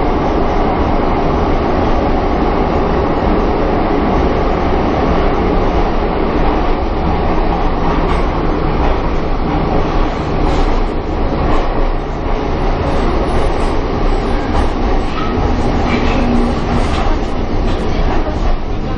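Pyongyang Metro train running through the tunnel, heard from inside the carriage: a steady rumble of wheels on rail with some faint clicking in the second half.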